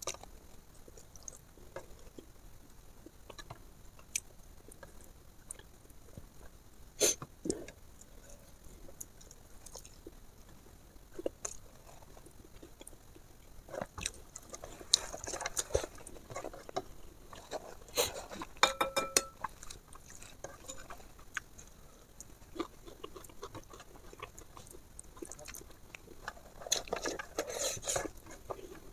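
Close-miked eating sounds: chewing and wet mouth smacks while eating rice and fish by hand, with fingers pressing and scraping food on a plate. Sparse clicks and taps get busier about halfway through and again near the end.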